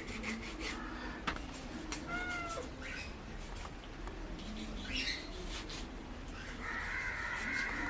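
A cat meows once, a short call about two seconds in, likely drawn by the fish being cut. Faint clicks and scrapes from a knife scoring fish run underneath.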